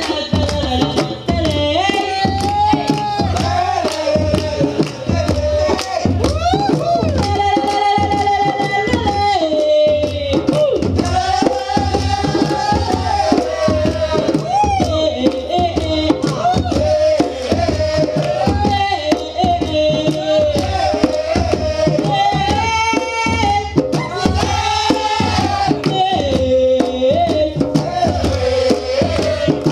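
West African djembe drum ensemble playing a fast, continuous rhythm of hand strokes, with a singing voice carrying a bending melody above the drums.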